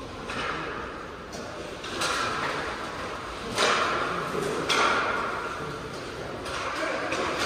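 Inline hockey play on a plastic tile floor: sharp, echoing knocks of sticks, puck and boards, the loudest two about three and a half and four and a half seconds in, over the steady hiss of skate wheels rolling.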